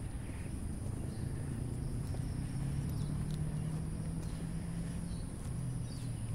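Steady high-pitched insect chorus in the trees at dusk, with a low steady hum underneath and a few faint chirps.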